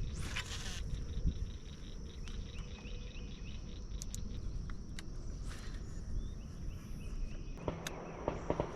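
Insects chirping in short repeated trills over a steady high drone, with a low wind rumble on the microphone and a brief hiss right at the start.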